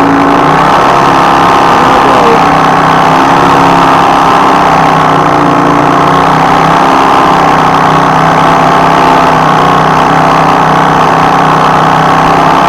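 Singer 281-1 industrial sewing machine running steadily at about half speed, a loud, even mechanical hum. It is being run up to speed so the oil flows through the whole machine.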